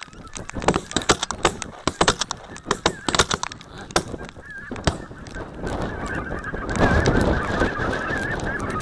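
A flock of greater white-fronted geese calling as it flies overhead, many quick honks overlapping. About six seconds in, a steady rushing noise grows louder beneath the calls.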